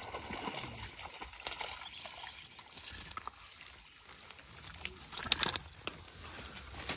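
A hooked snakehead splashing in weedy shallow water as it is reeled in and hauled up the bank, with irregular sharp splashes and rustling; the loudest splashes come about five seconds in.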